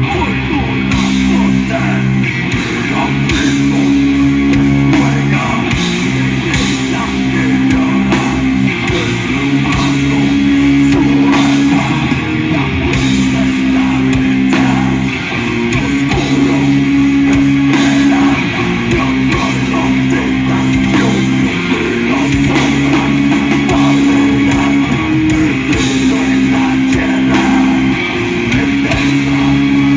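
Heavy metal band playing: distorted guitars hold low chords that change every couple of seconds in a repeating riff, over a drum kit.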